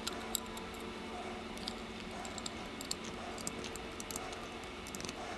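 Irregular small clicks and ticks of a precision screwdriver and tiny metal screws being handled and turned into a 3D-printed plastic plate, over a steady hum.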